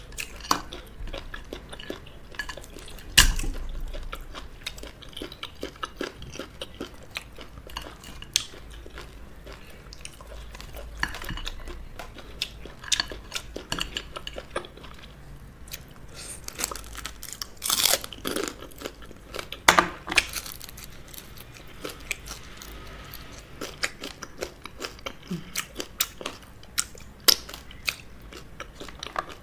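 Close-miked eating of fufu with okro soup and crab: continual chewing and crunching of crab shell, with a few much louder sharp cracks.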